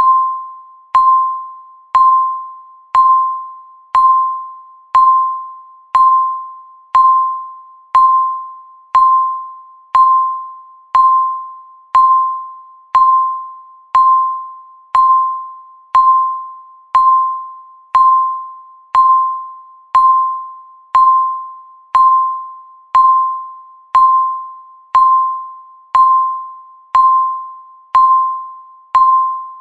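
Countdown timer's electronic beep marking every second: one single-pitched, bell-like tone that strikes sharply and fades away before the next.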